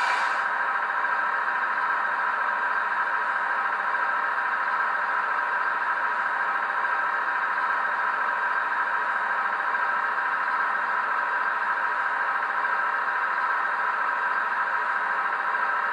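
ESU LokSound 5 sound decoder playing a KiHa 261 diesel railcar's engine at idle through the HO model's small onboard speaker: a steady idle with little bass.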